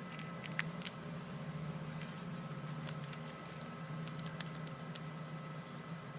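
Faint, scattered clicks of an airsoft pistol's CO2 magazine being handled while the cartridge's screw cap is twisted in, over a steady low hum.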